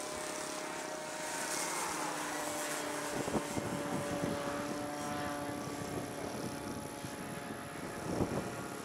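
Electric motor and propeller of a 59-inch radio-controlled biplane whining steadily in flight overhead, with two brief rumbling bursts, about three seconds in and near the end.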